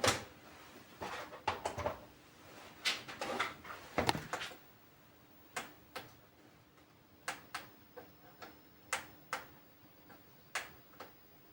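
A series of sharp clicks and knocks, bunched together over the first few seconds and then coming singly about once a second, over a faint steady hum.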